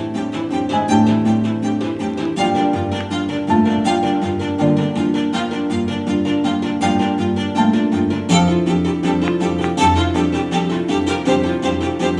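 Background music with strings and a steady beat.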